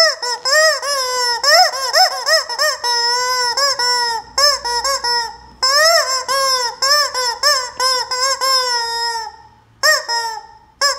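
Rubber chicken squeaker toy squeezed over and over, giving loud squawks that rise and fall in pitch. The squawks come in a fast run, break off briefly about halfway, start again, and end with a single squawk near the end.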